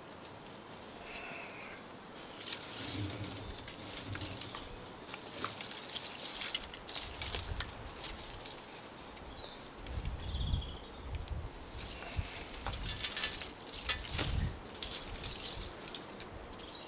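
Plastic-bottle tape cordage rustling and scraping as it is pulled tight and wrapped diagonally around a pallet-wood joint in a lashing, in several spells, with a few low bumps from the wooden frame being handled in the middle.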